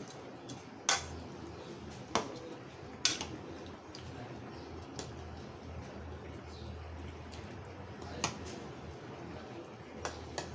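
A spoon stirring thick curry in a stainless-steel kadai, knocking and scraping sharply against the pan's side several times, mostly in the first three seconds and again near the end, over a low steady hum.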